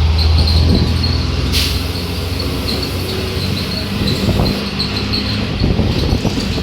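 Mercedes-Benz OF-1721 bus's diesel engine running with a strong low drone that drops off after the first second, then a short hiss about one and a half seconds in, and body rattles and knocks from the second half on.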